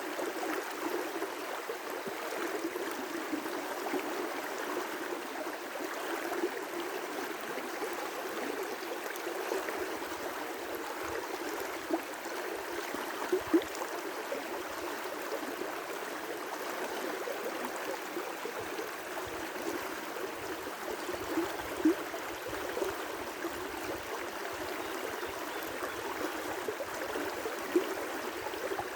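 River rapids: water rushing steadily over rocks, with a few brief louder splashes.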